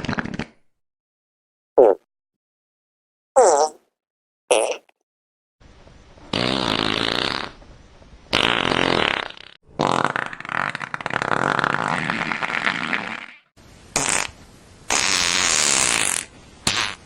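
A string of fart sounds, one after another with short gaps. There are three short ones in the first five seconds, then longer, drawn-out ones lasting from one to about four seconds each.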